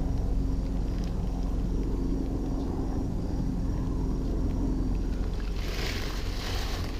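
Low, steady engine drone with a faint steady hum, with a brief hissing rush about six seconds in.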